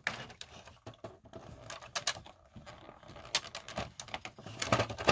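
Small plastic action-figure parts and their plastic packaging being handled: a run of irregular light clicks and rustles as the extra head sculpts are taken out, ending abruptly.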